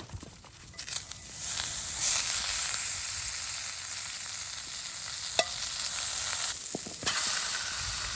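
Food sizzling in a hot frying pan, starting about a second in and running as a steady hiss. Near the end it dips briefly and then picks up again, with a single sharp click midway.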